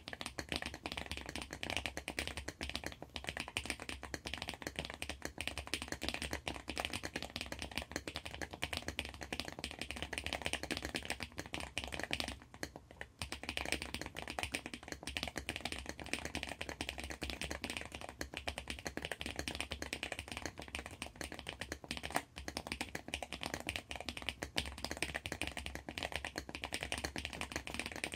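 Fast, continuous typing on a handwired mechanical keyboard. Its lubed tactile switches (Cherry Brown housings with Boba U4T stems) sit under XDA keycaps on a 3D-printed plate taped to cardboard. The typing breaks off briefly about halfway through.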